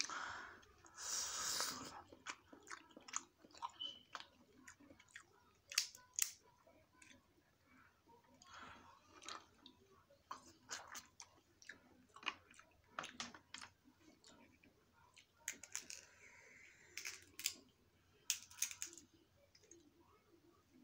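A person eating snow crab legs: chewing, with many sharp, irregular clicks and cracks as the crab shell is broken and pulled apart by hand.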